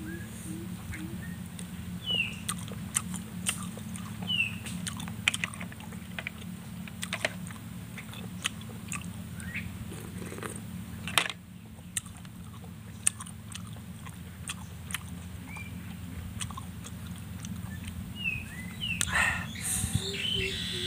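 A person eating cooked snails: many short, sharp sucking slurps and smacks as the meat is drawn from the shells, with chewing in between, over a steady low hum.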